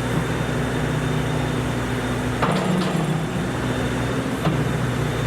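Steady running of heavy machinery, a low mechanical hum, with two short knocks about halfway through and near the end.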